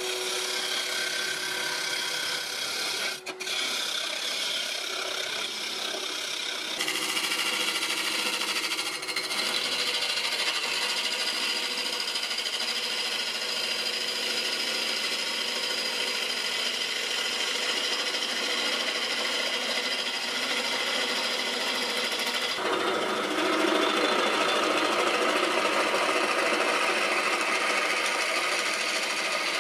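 Bowl gouge cutting into an ash bowl blank spinning on a wood lathe: a steady scraping hiss of wood being shaved away. The sound shifts in tone twice, getting fuller near the end.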